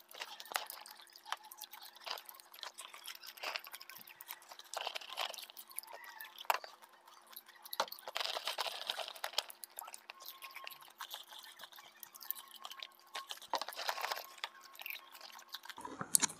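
People chewing and crunching masala popcorn: a stream of irregular, crisp little crunches, busiest about eight to nine seconds in.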